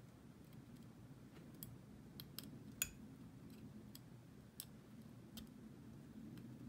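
Faint scattered clicks and ticks of a steel O-ring pick working at a small metal regulator part, with one sharper click about three seconds in, over a low room hum.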